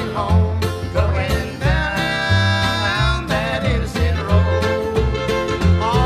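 Old-time string band music: an instrumental break with no singing, a sliding melody line over a steady plucked bass and rhythm.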